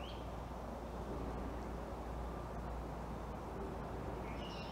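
Steady outdoor background noise with a low rumble, and small birds chirping: one short rising chirp at the start and a few quick chirps near the end.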